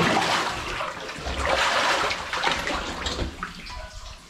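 Water sloshing and splashing as someone moves through a flooded mine passage, irregular and fading near the end.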